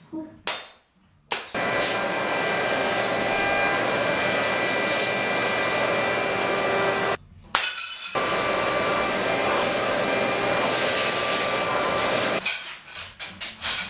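Loud, continuous rattling and clinking noise in two long stretches of about six and four seconds, with a short break about seven seconds in.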